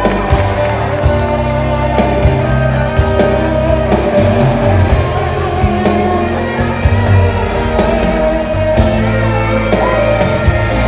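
Instrumental rock music with guitar, without vocals.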